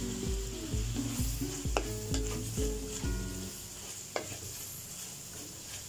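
Wooden spatula stirring and scraping chicken, shrimp and carrots around a metal wok while they sizzle in oil, with a few sharp knocks of the spatula against the wok. Background music with a steady beat plays under the first half and stops about three and a half seconds in.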